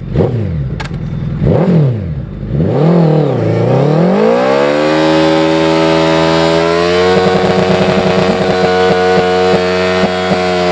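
Suzuki Hayabusa's inline-four engine blipped several times, then revved in one long rise and held at high revs for about four seconds during a rear-tyre burnout, with rapid crackling ticks over the held note, dropping back right at the end.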